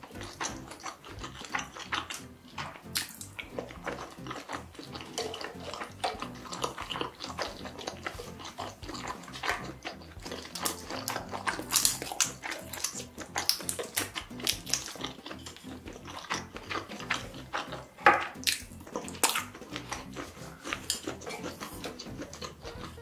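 Close, wet eating sounds: chewing, lip smacks and the squelch of sauce-coated food being pulled apart by hand, in a dense run of small clicks and smacks.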